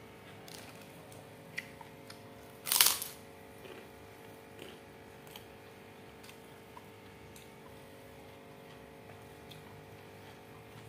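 Eating rice and beef rendang by hand from a banana-leaf and paper wrap: scattered small clicks and chewing sounds, with one brief loud crackle about three seconds in, over a faint steady hum.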